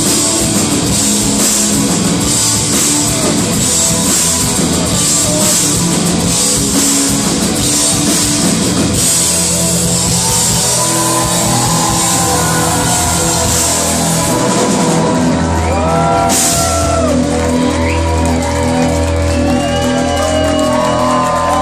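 Live rock band playing the song's closing instrumental section on electric guitars, bass and drums, with cymbals crashing. About fourteen seconds in the cymbals stop and the guitars ring on with sliding, wavering notes.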